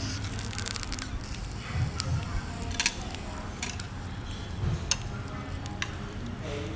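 Chopsticks clicking against a metal dome grill pan as cabbage leaves are laid into it, over a light sizzle and a low steady hum.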